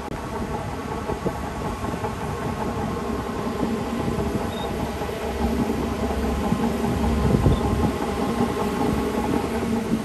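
Bulldozer's diesel engine running under load with irregular metallic clanks and knocks; it grows louder about halfway through and is loudest around three-quarters of the way in.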